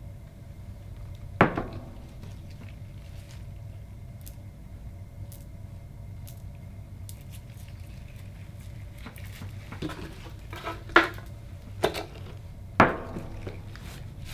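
Objects knocked down on a wooden cutting board. One sharp knock with a short ring about a second and a half in, as the metal bowl is set down. Then a quick run of four knocks and clinks near the end as small items are handled on the board, all over a steady low hum.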